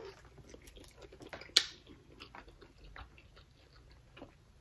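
Quiet chewing and small wet mouth clicks of people eating fried chicken wings, with one sharp click about a second and a half in.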